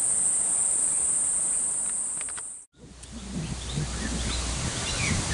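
Insects droning, one steady high-pitched whine, cut off abruptly just under three seconds in. Afterwards birds call with short chirps over a low rumble of wind and rustling leaves.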